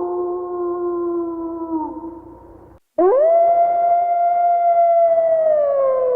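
Wolf howling: one long howl that drops in pitch and fades out. After a brief break a second howl sweeps quickly up, holds high and then slowly slides down.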